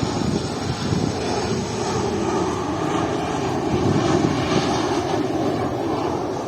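Batik Air jet airliner flying low past, a loud, steady jet-engine rumble that swells slightly midway.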